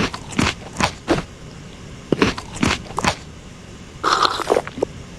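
Someone eating toast: a string of about seven short crunches and clicks over the first three seconds, then a brief scraping rustle about four seconds in.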